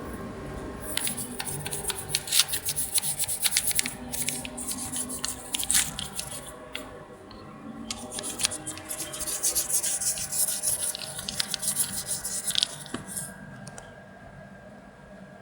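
Rapid scrubbing strokes on a motorcycle engine block, scouring off crusted deposits. The scrubbing comes in two bouts with a short break near the middle, and eases off a couple of seconds before the end.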